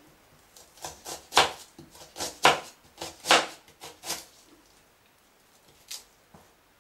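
Kitchen knife chopping an onion into medium cubes on a cutting board: a run of about a dozen uneven knife strikes against the board, starting about a second in, then two single taps near the end.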